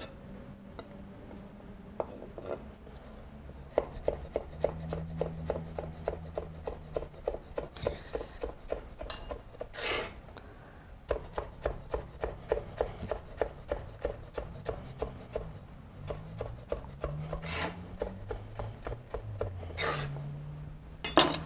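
Chef's knife chopping cucumber into small dice on a wooden cutting board: a fast, even run of knocks, about four to five a second. A few brief scraping sounds break in between the runs.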